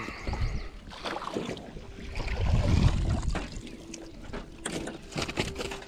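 Water splashing and knocks against the boat as a hooked largemouth bass is fought and brought aboard, with a loud low rumble about two seconds in and a faint steady hum coming and going.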